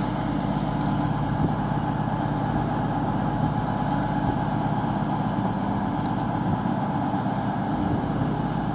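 CrossCountry Class 220 Voyager diesel multiple unit standing at the platform, its underfloor diesel engines idling with a steady low hum.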